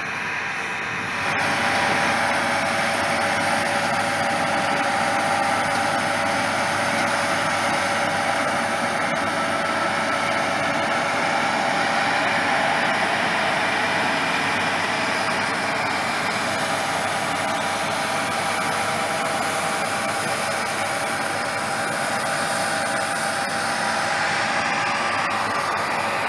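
John Deere combine harvester running while harvesting wheat: a steady machine drone with a whine of several held tones, which gets louder about a second in.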